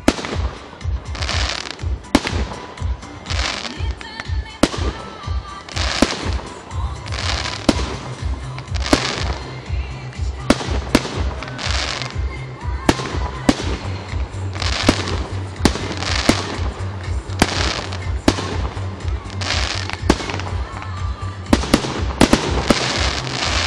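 Aerial fireworks shells launching and bursting: a sharp bang roughly every second, with hissing and crackling rushes between the bangs and a quick cluster of bangs near the end.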